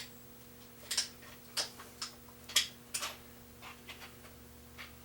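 Irregular sharp metallic clicks and clinks, about seven over a few seconds, from hand tools and engine parts being handled while an engine's main bearing caps are taken off.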